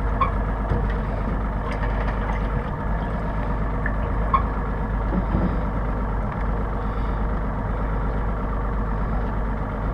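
Boat engine idling steadily, an even low hum.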